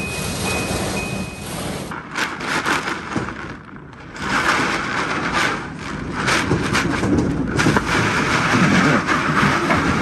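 Storm wind and heavy rain, the wind buffeting the microphone in uneven gusts, with a short lull about four seconds in.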